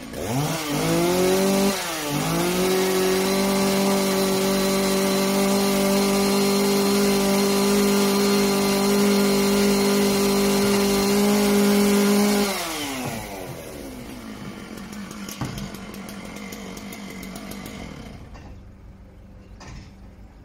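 Two-stroke chainsaw revved up to full throttle, dipping briefly near the start, then held at a steady high pitch for about ten seconds before the throttle is released and it drops back to a low idle.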